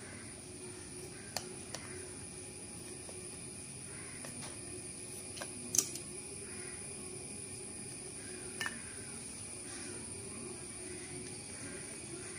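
A few faint, scattered metallic clicks and taps of a screwdriver prying at the lid of a small paint tin. The sharpest click comes about halfway through, over a low steady hum in the background.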